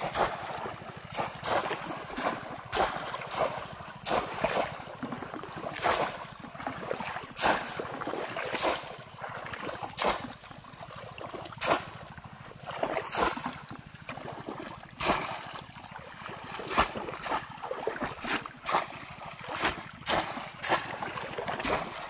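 Shallow paddy-field water splashing and sloshing over and over as people wade and fish in it, with irregular sharp splashes about one to two a second.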